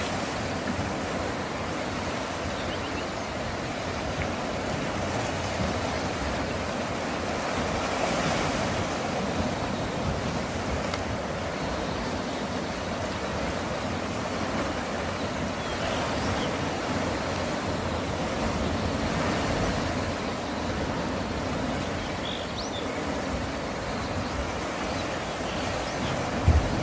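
Sea waves washing against a rocky shore, a steady rushing wash that swells and eases several times. A brief low thump comes near the end.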